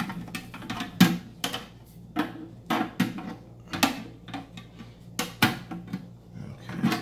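Removable shelf knocking and clattering against the inside of a steel pistol safe as it is worked into place: irregular sharp knocks, sometimes two close together.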